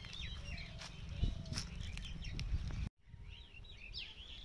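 Small birds chirping over and over, with wind rumbling on the microphone through the first three seconds; the sound cuts out for a moment about three seconds in, then the chirping carries on over a quieter background.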